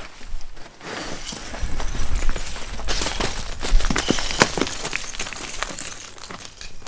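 Hiking boots scuffing and crunching on loose rock and gravel while scrambling up a sandstone step, with small stones clinking and clattering. The sharp clicks are thickest in the middle of the stretch.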